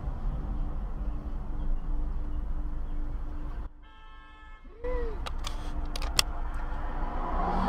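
Road noise and engine rumble of a car driving, recorded by a dash cam. After a sudden drop to a quieter stretch with a faint steady tone, there is a brief pitched sound that rises and falls, then several sharp clicks.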